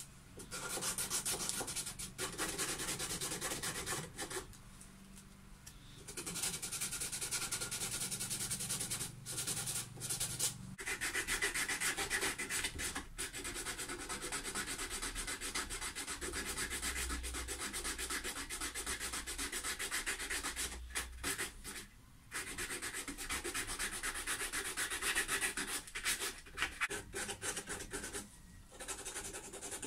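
Sandpaper rubbing on the roasted maple headstock of a guitar neck as it is sanded to shape. The sanding is continuous and scratchy, stopping briefly a few times.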